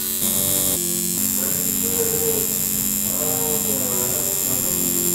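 Coil tattoo machine buzzing steadily while needling skin, its pitch shifting slightly a few times in the first second.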